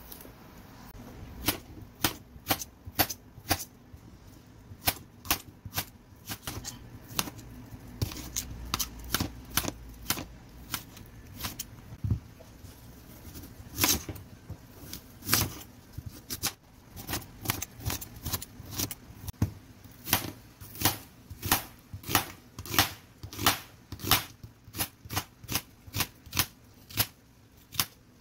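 Kitchen knife slicing carrot and onion on a stainless steel surface: sharp clicks as the blade strikes the steel, irregular at first and quickening to about two a second near the end, over a faint low hum.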